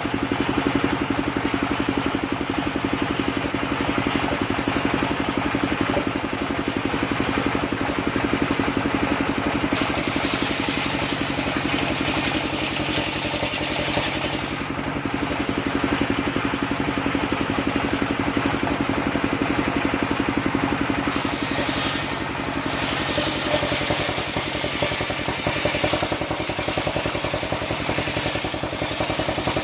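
Engine-driven portable circular sawmill running steadily, its engine making a constant drone while the saw's higher noise grows brighter about ten seconds in and again near the end.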